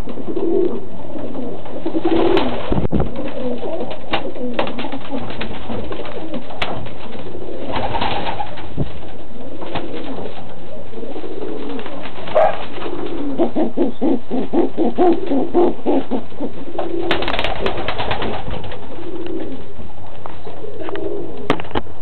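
Domestic pigeons cooing again and again inside a wooden loft, calls from several birds overlapping, with scattered sharp clicks and knocks in between.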